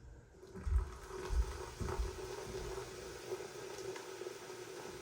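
White vinegar being poured slowly into baking soda in a plastic bag, the mixture fizzing and foaming with a steady hiss. There are a few low bumps from handling the bag and pitcher in the first two seconds.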